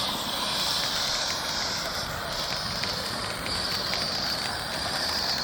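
Ground fountain firework spraying sparks with a steady, high hiss that stops abruptly after about five seconds.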